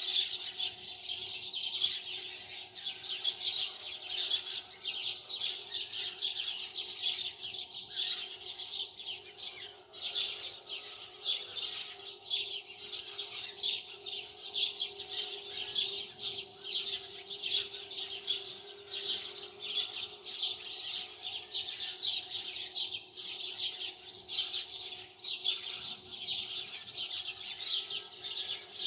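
Birds chirping continuously in a dense, rapid chatter, over a faint steady hum.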